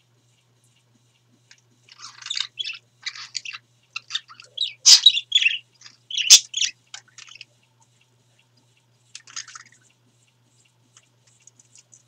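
Pet budgerigars chirping and chattering in quick runs of short, high chirps. The calls start about two seconds in, are loudest in the middle, and come back in a brief burst near the end.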